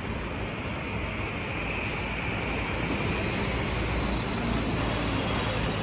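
Steady vehicle running noise: a continuous rumble and hiss with no distinct events. A faint steady high tone joins about halfway through.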